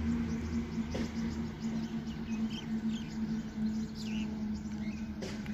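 Small birds chirping in short, quick calls over a steady low mechanical hum that cuts off suddenly at the end.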